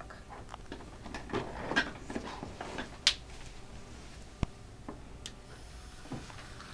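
Scattered light knocks and clicks of cardboard and plastic being handled, with one sharp click about four and a half seconds in.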